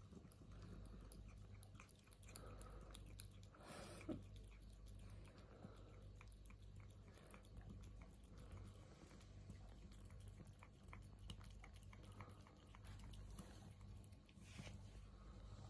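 Kitten licking up unsweetened yogurt: a run of faint, quick, wet mouth clicks, with one brief louder knock about four seconds in.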